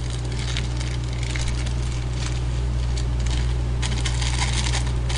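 Small plastic seasoning sachet crinkling as it is torn open and shaken, the dried sesame-and-laver flakes falling onto noodles in a steel bowl: a crackle of many small clicks, thickest about four seconds in. A steady low hum runs underneath.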